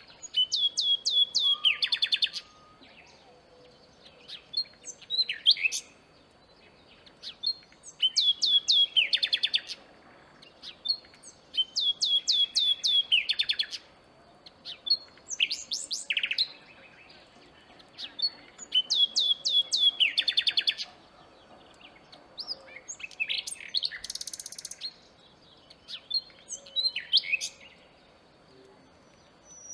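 Common nightingale singing: about eight separate phrases, each a rapid run of repeated sweeping notes, with short pauses between phrases.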